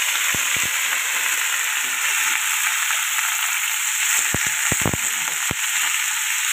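Squid stir-frying in hot oil and garlic in a metal wok, sizzling loudly and steadily, with a few light taps of wooden chopsticks against the pan as the pieces are stirred.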